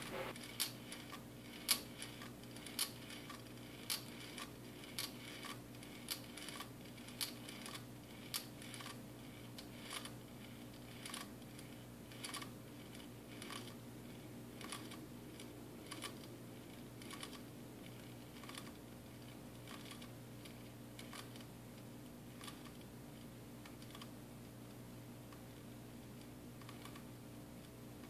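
A homemade marble Stirling engine running: light glass clicks about one or two a second as the test tube rocks and the marbles roll against each other and the glass, fading in the second half. A faint steady hum lies underneath.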